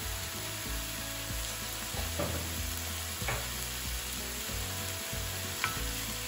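Chopped onions, carrots, parsnip and celery root sizzling as they fry in butter and bacon fat in a pan, with a few light clicks.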